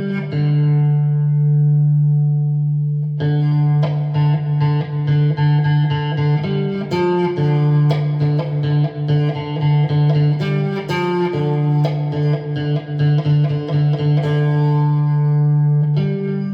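Electric guitar played through an amplifier with effects: a held note rings for about three seconds, then a run of picked melody notes over a sustained low tone.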